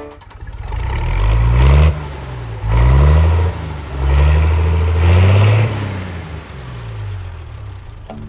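An engine revving up and back down repeatedly, with about four loud surges, its pitch rising and falling with each.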